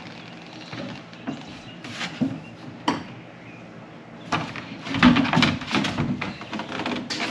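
Hard plastic storage tray being worked loose and lifted out of a boat's rear seat compartment: a few light clicks and taps, then from about four seconds in a run of plastic knocks and rubbing, loudest a second later.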